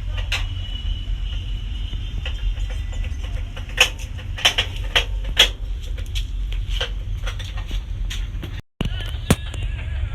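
Scattered sharp metallic clicks and knocks from handling the parts of an oil-filled radiator heater during reassembly, a cluster of them around the middle and one more near the end, over a low steady rumble.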